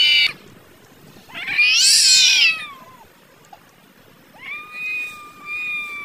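Two domestic cats yowling at each other, the threat calls of a standoff over food. A loud, harsh yowl comes about a second and a half in, rising then falling in pitch, and a long, quieter, drawn-out yowl follows near the end.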